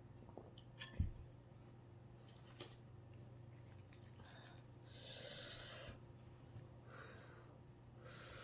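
Close-miked eating sounds: a sharp knock about a second in, small clicks, then three hissy bursts of chewing and breathing in the second half.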